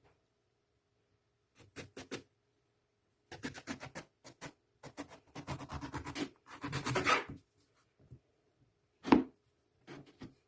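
Kitchen food-preparation sounds: a knife or utensil scraping and rubbing on food and a board in short runs, with one sharp knock about nine seconds in.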